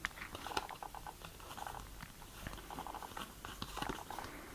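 Stiff cardboard game cards being slid and flipped through in the hand: a faint, irregular string of small clicks and rustles.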